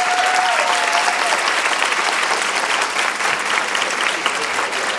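Audience applauding steadily, a dense patter of many hands clapping at the end of a talk.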